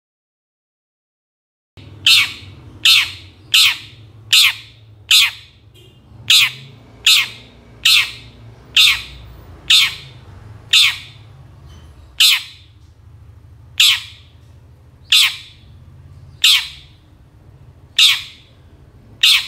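Long-tailed shrike (cendet) giving a series of short, loud squawking calls, each sweeping down in pitch. About seventeen calls start about two seconds in, roughly one a second, spacing out a little towards the end.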